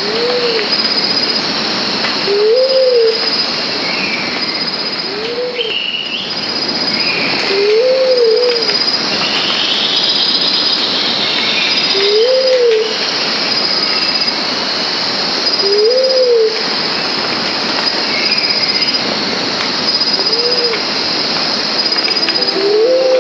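Tropical forest ambience: a bird's low, rising-and-falling hoot repeated about eight times, every few seconds, over a steady high insect drone with a regular pulsing chirp, and other birds calling faintly now and then.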